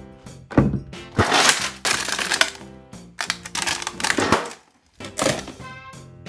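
Background music, with loud bursts of rustling and clatter from a freezer drawer and ice being handled, in three spells.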